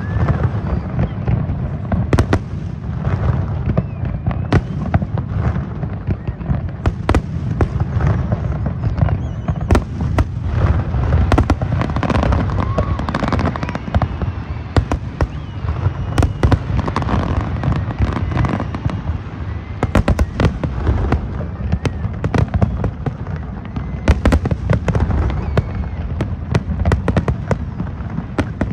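Fireworks display: a rapid, continuous barrage of bangs and crackles over a steady low rumble.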